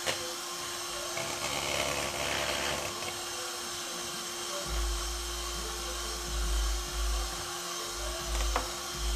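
Moulinex electric hand mixer running steadily, its beaters whisking eggs in a plastic bowl, with low bumping sounds from about halfway through.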